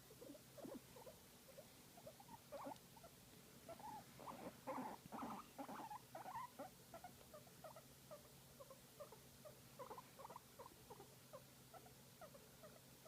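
Guinea pig making a quick run of soft, short squeaky chirps, several a second, louder about four to six seconds in: the contented sound of a guinea pig being stroked and massaged.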